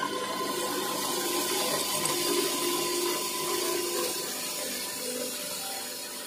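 I-Taner 3-in-1 chaff cutter's grain-grinding attachment running, driven by its electric motor and milling pearl millet (bajra) into fine flour: a steady rushing whir with a few faint steady tones in it.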